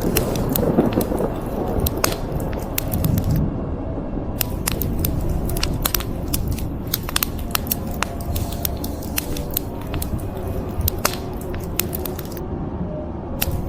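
Wood fire crackling, with frequent sharp pops and snaps over a low steady rumble.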